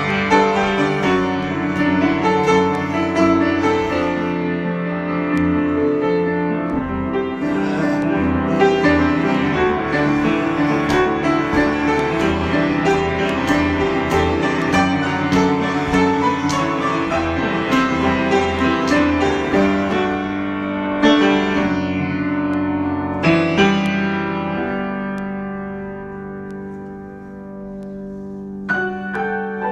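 Solo piano improvisation with dense runs and chords. Past the two-thirds mark, two struck chords ring out and fade, then the playing softens, and a new chord is struck near the end.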